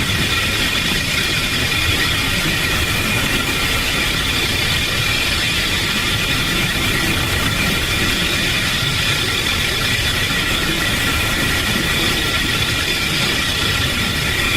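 Steady mechanical rumble with several high, even whining tones over it, unbroken and without beats.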